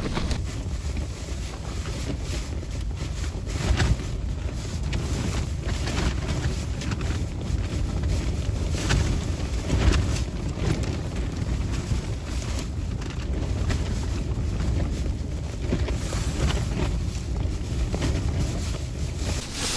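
Wind buffeting the microphone: a steady low rumble with a few brief knocks.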